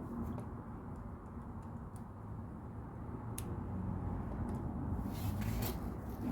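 Plastic LEGO bricks being handled and pressed together: scattered small clicks, with a short cluster of clicks and rattles about five seconds in, over a steady low background hum.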